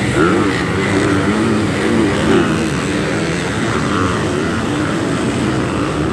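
Several dirt bike engines revving hard, their pitches rising and falling and overlapping as the riders work the throttles.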